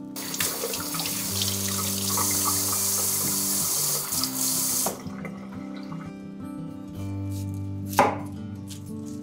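Kitchen tap running into a sink for about five seconds, then shut off abruptly; about 8 seconds in, a single knife stroke cuts into a turnip on a wooden board. Soft background music plays throughout.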